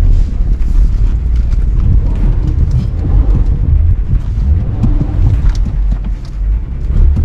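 Vehicle driving over a rough, potholed dirt road: a loud low rumble with scattered knocks and rattles from the bumps.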